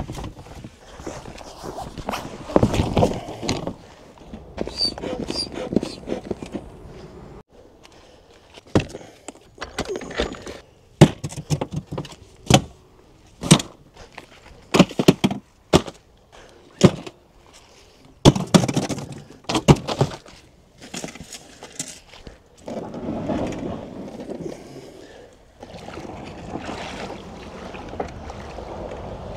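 Irregular knocks and thumps on a boat, about twenty of them and thickest in the middle, with scraping and rustling between.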